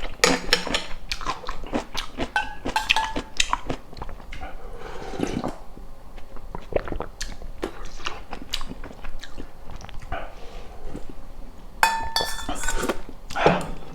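Close-miked eating: a person chewing and biting food in a steady run of small wet clicks and crackles, with a brief ringing clink of a utensil against a dish near the end.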